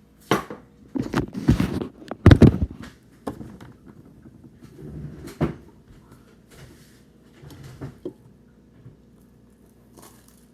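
Irregular knocks, clatters and rustling of objects being handled, loudest in a cluster between about one and three seconds in, with a few lighter knocks later.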